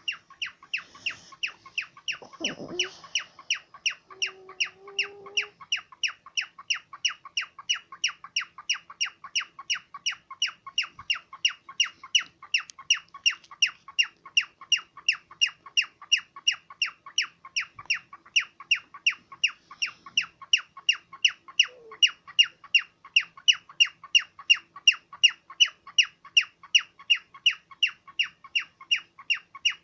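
A cockatiel calling over and over in short, sharp, shrill chirps, evenly spaced at about three a second and keeping up a steady, alarm-like rhythm.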